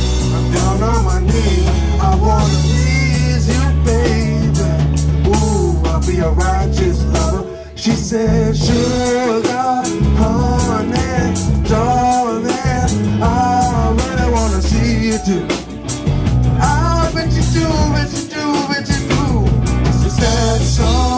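Live band playing: drum kit, bass guitar, electric guitar and keyboard, with a singer's melodic line over them. The music breaks off briefly about seven and a half seconds in, then carries on.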